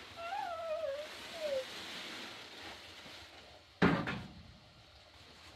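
A high, wavering cry in two or three short glides in the first second and a half, then a single sharp thump about four seconds in, the loudest sound.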